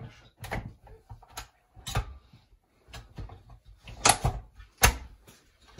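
Plastic and metal clicks and knocks of a stand mixer having its attachment changed and its head lowered and locked: about half a dozen separate sharp knocks, the loudest two near the end.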